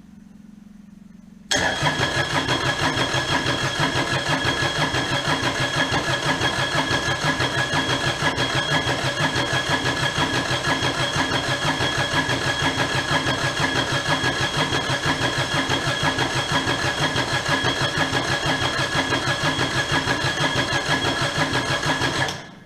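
Kubota D722 three-cylinder diesel cranking on its electric starter, with a steady starter whine over an even pulsing, as a first start is tried after the injection pump was refitted and the fuel bled. It begins suddenly about a second and a half in and cuts off abruptly near the end.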